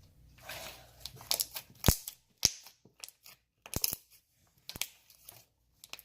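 Slime being squeezed and handled, with irregular sharp clicking pops and a little soft rustling near the start.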